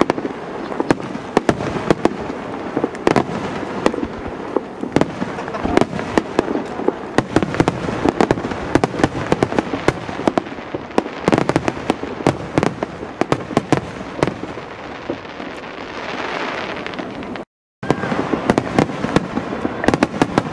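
Aerial firework shells bursting in a rapid, dense run of bangs and crackling star effects. The sound drops out completely for a moment about seventeen seconds in.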